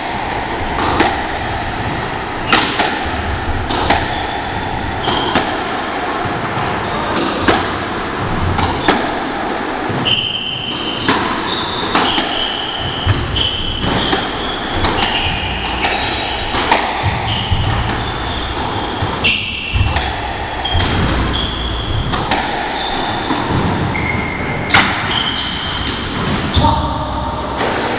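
Squash rally: the ball struck by rackets and hitting the walls, a sharp hit about every second or so, with short squeaks of court shoes on the wooden floor between the hits.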